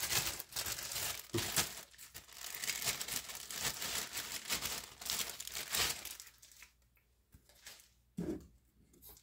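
Plastic packaging bag crinkling and rustling as it is handled and pulled off, for about six seconds, then quiet apart from a brief knock near the end.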